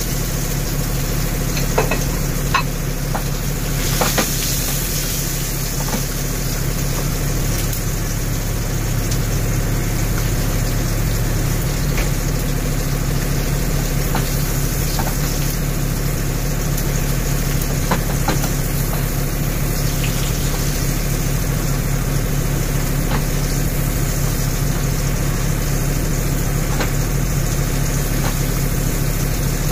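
Beef tenderloin steak sizzling steadily in a hot grill pan, over a steady low hum, with a few light clicks in the first few seconds.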